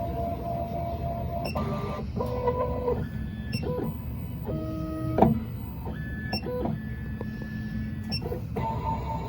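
Stepper motors of a Miracle A9 key cutting machine driving its probes through a calibration measuring pass: a whine that jumps to a new pitch every second or so, with a small click at each start and stop of a move, over a low steady hum.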